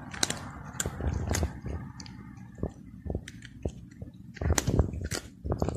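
Egyptian Mau kitten crunching dry kibble, eating it from a hand. Irregular sharp crunches, with a quick run of them about four and a half seconds in.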